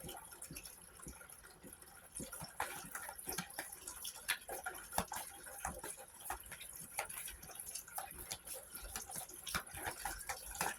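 Faint, irregular soft clicks and taps, a few a second: a deck of tarot cards being shuffled and handled.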